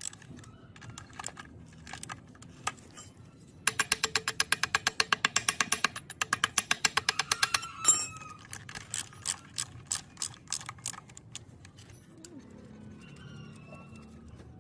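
Metal hand-tool work on an old gearbox: two quick runs of rapid, even metallic clicks, a single louder knock, then slower scattered clicks and a few short squeaks.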